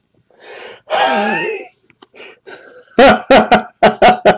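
A man's voice making no clear words: a short voiced sound about a second in, then from about three seconds in a loud run of short, throaty bursts, about five in two seconds.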